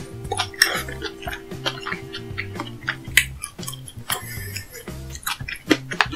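Background music with a repeating bass line, over scattered clicks and taps of eating utensils against dishes.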